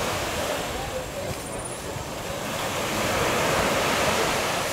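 Steady rushing outdoor noise, like surf or wind, that eases a little around the middle and swells again near the end; no monkey calls stand out.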